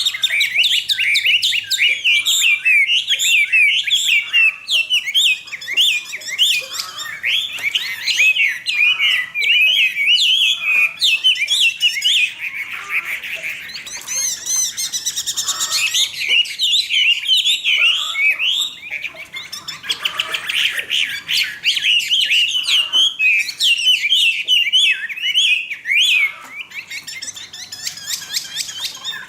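Chinese hwamei (họa mi) singing a continuous, rapidly varied song of gliding whistled phrases, with a higher trill about halfway through.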